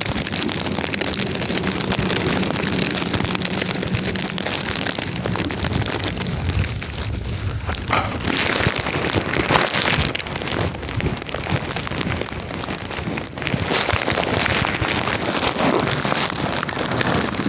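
Sleet and icy snow pattering steadily, sounding like rain, with many irregular small crackles.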